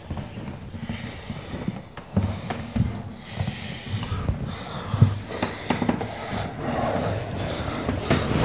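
A couple kissing, with heavy, irregular breathing and a few short sharp kissing or movement sounds; one knock-like sound comes near the end.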